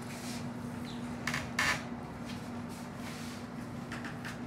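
A large kitchen knife scraping along a plastic cutting board as it slides under sliced avocado: two short scrapes about a second and a half in, then a few lighter handling sounds. A steady low hum runs underneath.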